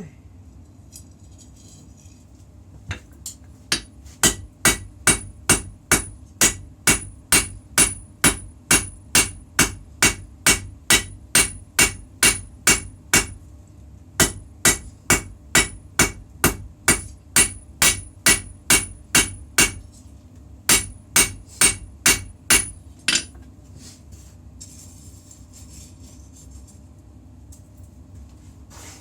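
Hammer blows on a puukko knife blade being forged on an anvil: a steady run of ringing strikes, a little over two a second, in three runs broken by two short pauses.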